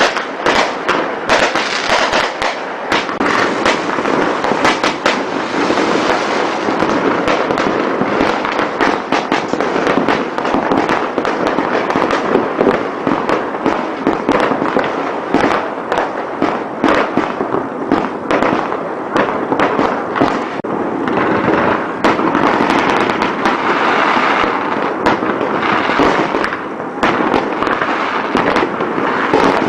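New Year fireworks and firecrackers going off without pause: many overlapping bangs and crackles a second, over a continuous crackling din.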